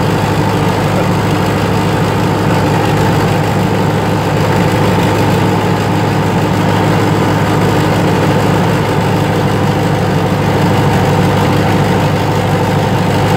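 Fortschritt ZT 303 tractor's four-cylinder diesel engine running at a steady speed as the tractor drives along, heard from inside the cab as an even, low hum.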